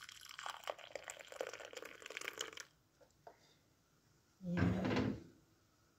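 Liquid gelatin mixture poured into a glass dessert cup, splashing for about three seconds. About a second and a half after the pouring stops comes a louder short clunk, the loudest sound here.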